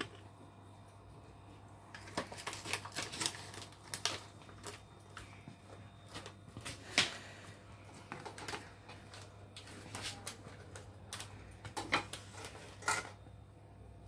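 Scattered light clicks and taps of hands working an aluminium pot lid into place and pressing it down to seal it on the pot, with a sharper knock about halfway through and two more near the end.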